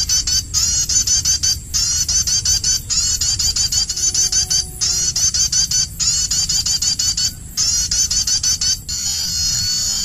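Recorded bird call played from a loudspeaker as a lure: a loud, high-pitched run of fast repeated chirps in phrases about a second long with brief breaks between them, changing to a steadier trill near the end.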